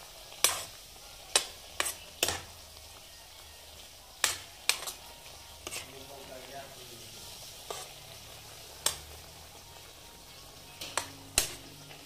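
Food frying in a pan with a low steady sizzle, stirred, and the stirring utensil knocking sharply against the pan about ten times at irregular intervals.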